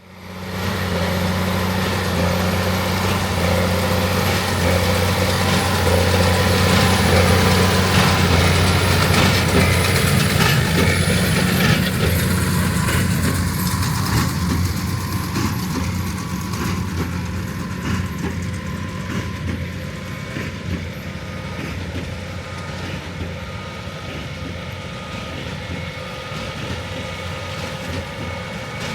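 Heavy farm machinery's diesel engine running steadily under load. It grows louder over the first few seconds, then slowly fades after about ten seconds.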